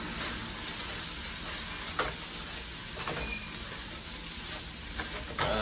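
Seasoned ground turkey frying in a pot, sizzling steadily while it is stirred, with a few scrapes or knocks of the utensil against the pot.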